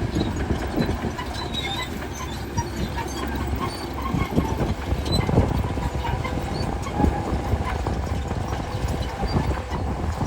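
Bulldozer working: a steady low engine drone with irregular clanking and knocking, typical of steel tracks rolling and slapping.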